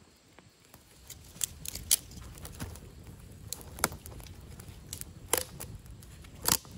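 Twig kindling fire crackling, with scattered sharp snaps over a low rushing noise that comes up about a second in.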